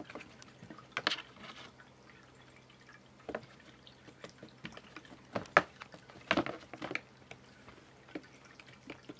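Scattered light taps and scuffs on a cardboard cat play box as cats paw and move inside and on top of it, a handful of sharp taps with the loudest a little past halfway.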